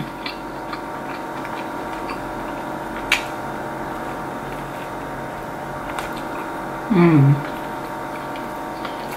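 One sharp crunch about three seconds in as teeth bite through a crispy fried chicken sandwich, over a steady background hum. A short falling hummed "mm" follows near the end.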